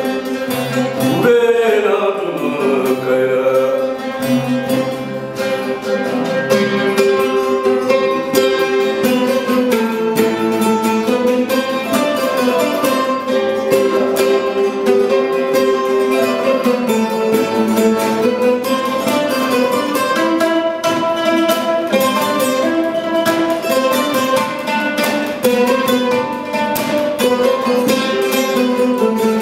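Acoustic trio of plucked strings playing together: a West African kora, an Arabic oud and a long-necked lute, in a busy, even-paced melody.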